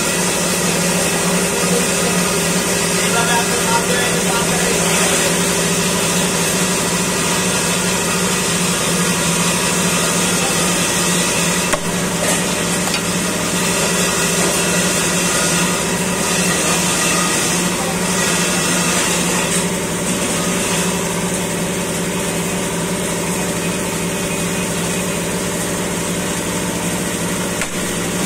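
A machine motor hums steadily, with people talking in the background and a couple of sharp knocks of a blade on the chopping block.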